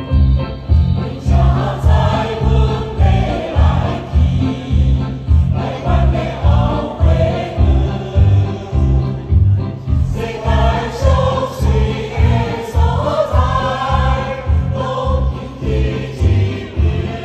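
Choir singing a light, upbeat Taiwanese Hokkien song over an accompaniment with a steady low beat, about two beats a second.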